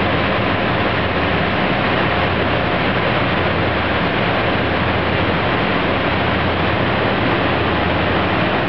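Steady, loud rushing noise with a low hum from running shop machinery such as a fan or blower, unchanging throughout.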